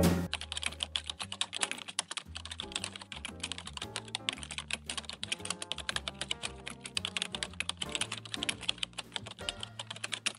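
Keyboard typing sound effect: a fast, steady stream of key clicks over soft background music with a bass line.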